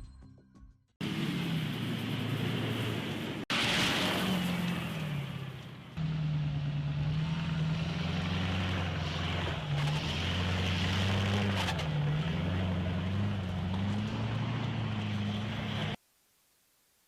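Military light tactical vehicle's engine running, its pitch rising and falling as it revs. The sound comes in several short clips cut together and stops abruptly near the end.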